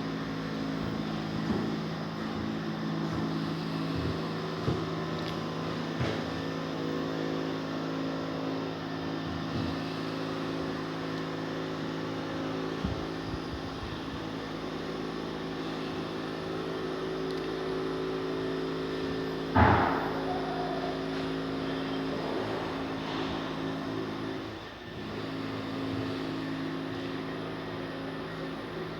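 Steady hum of a running engine, with a few scattered knocks and one loud bang about twenty seconds in.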